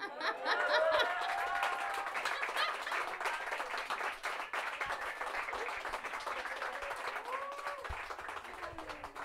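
Small audience applauding and cheering at the end of a song, with whoops near the start and again near the end.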